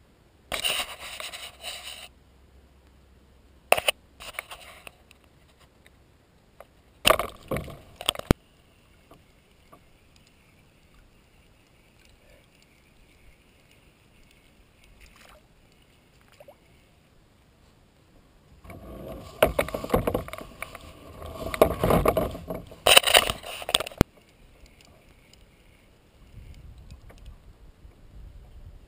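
Kayak on the water: short bursts of splashing and knocking against the hull, with quiet stretches between. The longest and loudest burst, several seconds of splashing and rumble, comes about two-thirds of the way through.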